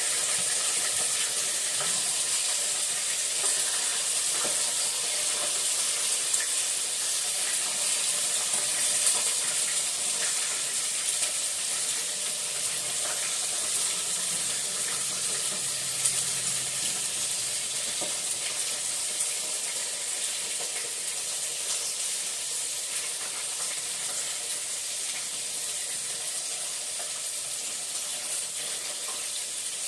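Battered chicken frying in hot oil: a steady sizzle with a few small pops, slowly easing in loudness.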